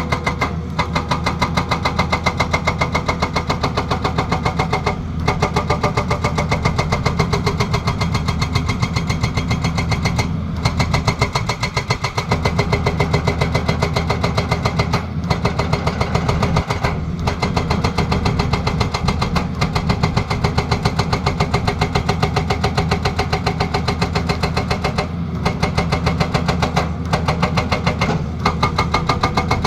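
Excavator-mounted hydraulic breaker hammering in a rapid, steady rhythm of blows, over the excavator's diesel engine.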